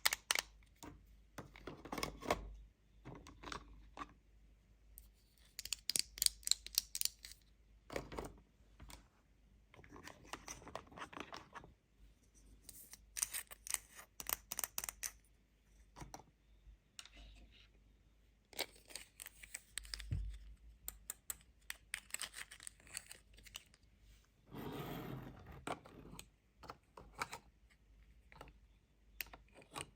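Unboxing of a toy cash register set: scattered clicks, taps and rustles of plastic pieces and packaging, with a longer tearing stretch about five seconds before the end.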